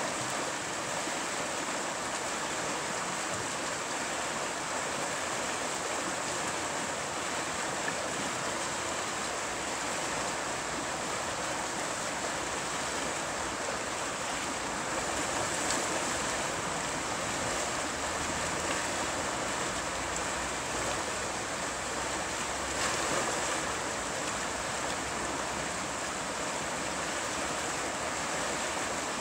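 Fast river water rushing over a shallow whitewater rapid: a steady, even wash.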